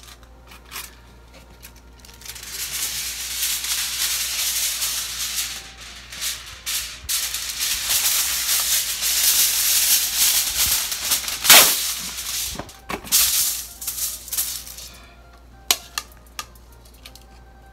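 Aluminium foil pulled off the roll and handled, a long crinkling rustle lasting about twelve seconds, with its loudest sharp crackle a little past the middle. A few light clicks follow near the end.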